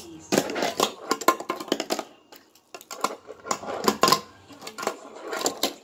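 A fingerboard clicking and clacking as it is flipped and slid on a toy handrail and stair set and landed on the table, in three spells of rapid small hard knocks.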